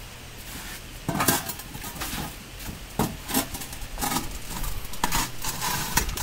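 Steel parts of an egg-laying concrete block machine clanking and knocking together as a heavy box is forced into the frame, a tight fit because of the paint. There are several sharp knocks about a second apart, the loudest about a second in.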